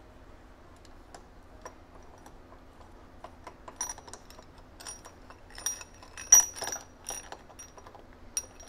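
Small steel headset parts clinking and clicking against each other as the upper bearing race is handled: scattered light clicks, several with a short metallic ring, busiest in the second half with one sharper clack about six seconds in. A faint steady hum runs underneath.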